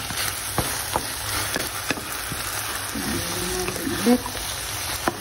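Vegetables and mushrooms frying in a wok, with a steady sizzle and a wooden spatula knocking and scraping the pan as they are stirred. A wavering voice-like sound is heard around three to four seconds in.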